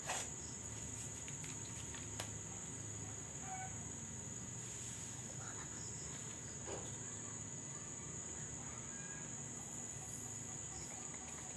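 Steady high-pitched insect chirring, like crickets, under a quiet room, with a few faint taps.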